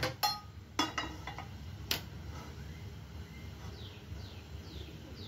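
A few sharp clicks and knocks in the first two seconds as a gas stove burner is lit with a handheld spark lighter, over a low steady hum. Faint bird chirps near the end.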